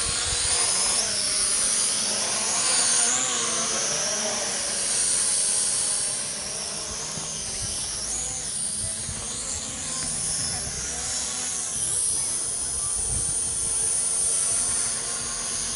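FX15 toy quadcopter drone flying, its small propellers and motors making a high-pitched whine that wavers up and down in pitch as the motor speed changes.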